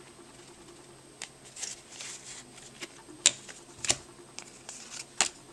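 Trading cards being handled: card stock sliding against card stock and being laid down on a playmat, a string of short sharp snaps and rustles, the loudest two about three and four seconds in.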